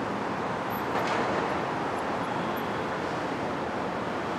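Steady city street traffic noise, an even wash of sound from vehicles with no single event standing out.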